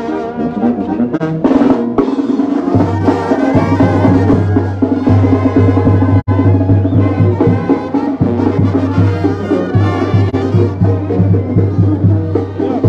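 Mexican brass band (banda de viento) playing: trumpets and trombones carry the tune over a tuba's pulsing low bass line and a bass drum beat. The sound drops out for an instant about six seconds in.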